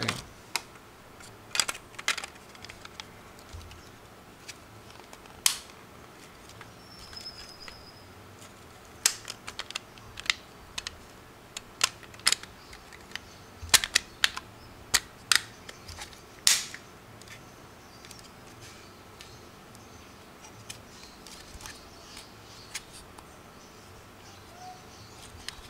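Irregular sharp plastic clicks and snaps as a black plastic Raspberry Pi 3 case is handled, pressed together and pried apart by hand, coming thickest in the middle; one side of the case is not fitting correctly.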